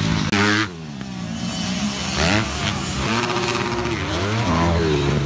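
Motocross dirt bikes racing on a dirt track, engines revving up and down in pitch as the riders accelerate and shift. The sound is loud for about the first half-second, then drops suddenly.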